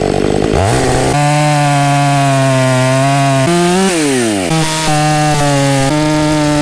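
Fuel-injected Stihl MS 500i chainsaw with an aftermarket exhaust, revved from idle to full throttle about half a second in and held at a high steady pitch while cutting into the trunk. The pitch sags briefly past the middle as the bar loads, recovers, and drops back toward idle as the throttle is released at the very end.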